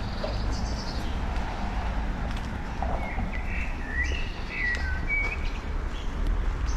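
Birds chirping in short high calls, with a louder run of chirps in the middle, over a steady low rumble.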